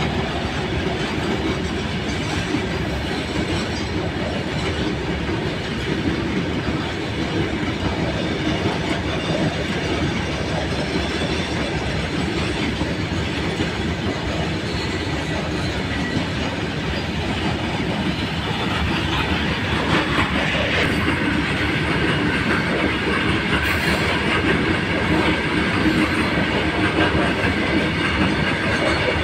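Indian Railways goods train of BCN covered wagons rolling past: a steady rumble and clatter of steel wheels running over the rails. It grows a little louder and brighter in the last third.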